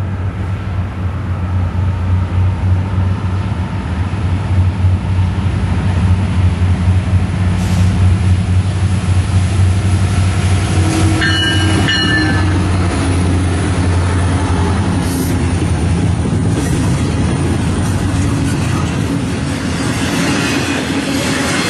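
Norfolk Southern diesel locomotives drawing closer and passing with a deep, steady engine drone, with a brief high ringing tone about halfway through. After the engines go by, the double-stack container cars roll past with a broad, even rumble.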